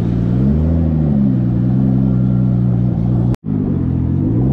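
Car engine running at low speed, its pitch rising and easing back down gently as the car rolls along. The sound cuts out completely for a split second about three and a half seconds in.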